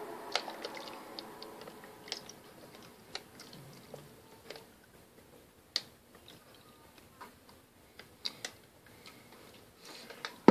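Scattered faint clicks and taps, irregular, from a plastic bag and a mug being handled, with one sharper tap about halfway through.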